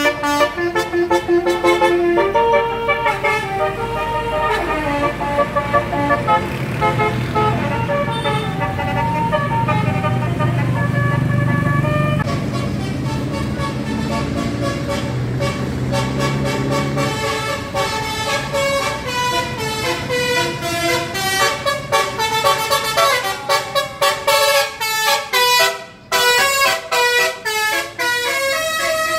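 Indonesian bus 'telolet' horn, a multi-tone musical horn, playing melodic runs of bright notes that jump between pitches, with a low engine rumble under it in the middle. In the last third the notes come as rapid, choppy bursts.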